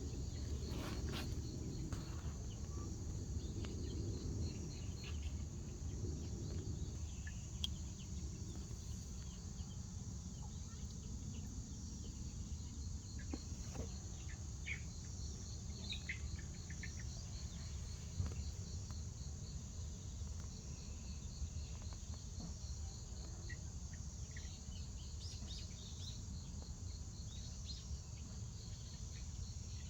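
Insects trilling steadily in a high, evenly pulsed chirr, over a low rumble, with scattered short chirps.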